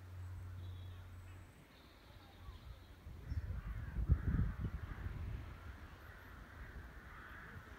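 Birds calling at a distance in the dusk, with harsh crow-like calls among them, over an irregular low rumble that is loudest about four seconds in.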